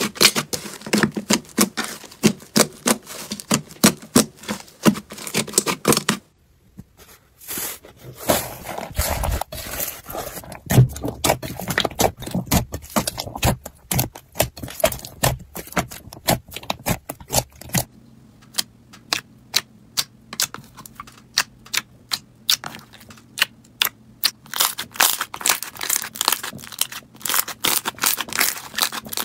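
Hands squeezing and kneading slime, giving a dense run of sharp sticky clicks and little popping crackles as air pockets burst, with a short near-silent break about six seconds in where the clip changes.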